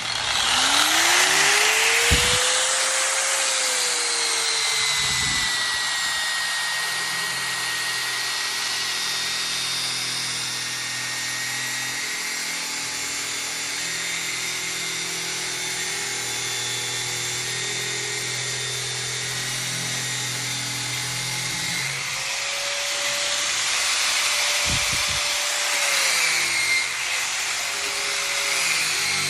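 Bauer surface grinder's motor winding up in the first few seconds, then a steady abrasive grinding as it scrubs rust off steel fence tubing.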